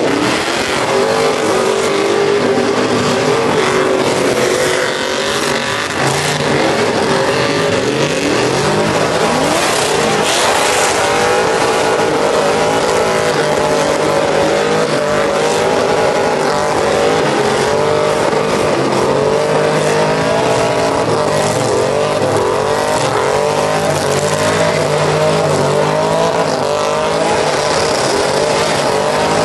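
Several trucks doing burnouts at once. The engines are held at high revs, their pitch wavering up and down, over the continuous hiss and squeal of tyres spinning on the pavement.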